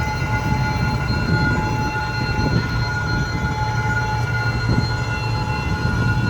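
D19E diesel-electric locomotive hauling a passenger train past: a steady low engine rumble and rolling noise, with several steady high tones held above it.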